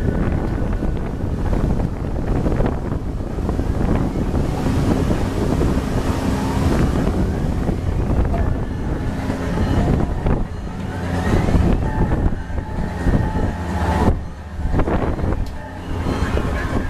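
Heavy wind buffeting the microphone over the steady mechanical running of the Insanity thrill ride's rotating arm.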